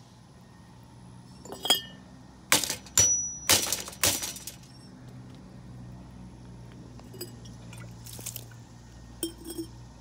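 A series of sharp clinks and clatters of hard objects, the loudest cluster a little past a third of the way in and a few fainter ones later, over a faint steady low hum.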